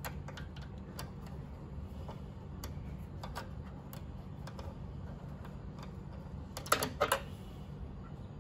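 Small scattered metal clicks and taps from a hand tool tightening the bolts of a piercing valve clamped onto a refrigerator's copper compressor tube, with a quick pair of louder clicks near the end, over a low steady hum.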